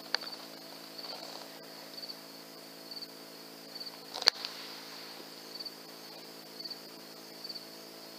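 Crickets chirping in short pulsed chirps about once a second, over a low steady hum. A sharp click about four seconds in is the loudest sound, with a fainter click right at the start.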